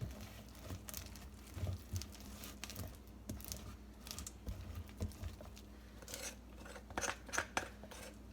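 Irregular scraping, clicks and taps of a utensil working thick, hot peanut brittle candy in a dish as it begins to harden, with a few dull knocks in the first half and sharper clicks near the end.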